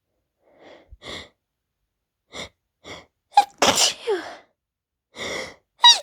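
A woman sneezing in an allergy fit that she puts down to dust. Several short catching breaths build up to one loud sneeze about halfway through, which trails off in a falling voiced sound. Another breath and a rising gasp near the end lead straight into the next sneeze.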